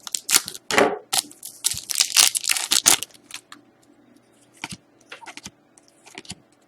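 Crinkling and crackling of plastic and foil packaging while trading cards are handled, dense for the first three seconds, then sparse clicks and rustles.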